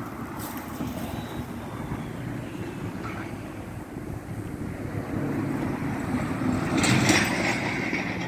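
Road traffic going by, with wind noise on the microphone; a vehicle passes louder about seven seconds in.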